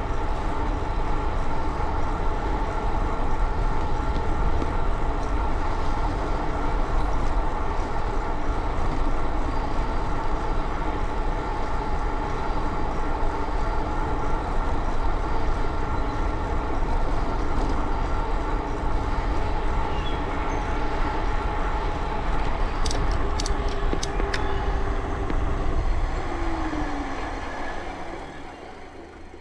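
Bicycle riding fast: steady wind rumble on the microphone with a steady whine from the moving bike, a few sharp clicks late on, then a falling tone and the sound dying away near the end as the bike slows.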